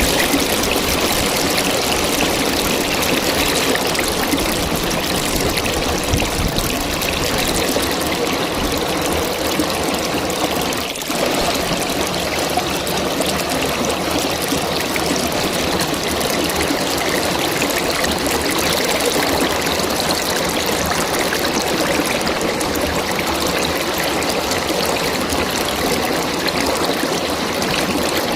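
A river flowing, a steady rush and babble of water, with a brief dip in level about eleven seconds in.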